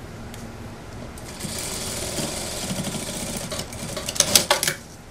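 Industrial single-needle lockstitch sewing machine stitching a suit trouser waistband in a short run of about three seconds. It starts about a second and a half in and stops near the end with a few loud sharp clicks.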